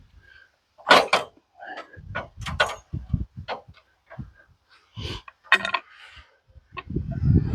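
Irregular knocks, clanks and scrapes of a heavy pitch pine cant being levered over on a portable sawmill's bed, with a heavier low thud near the end.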